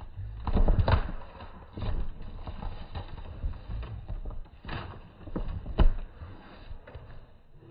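A few scattered dull thumps and knocks over a low rumbling noise, the sharpest knock near six seconds in.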